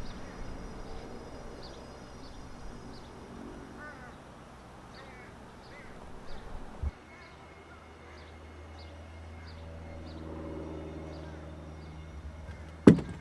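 Faint outdoor ambience with birds calling, repeated short high chirps throughout, and one sharp knock near the end.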